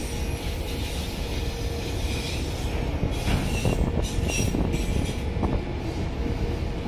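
Freight train of enclosed autorack cars rolling past close by: a steady rumble of steel wheels on rail, with clacks over rail joints between about three and five and a half seconds in and thin squeals from the wheels.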